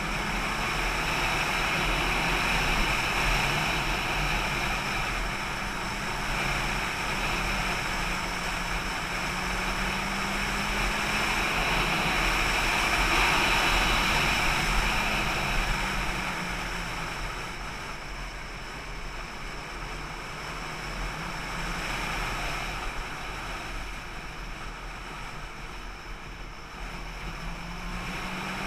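A vehicle's engine running at road speed under steady wind rush, its pitch rising and falling as the speed changes. It is loudest about halfway through and eases off after that.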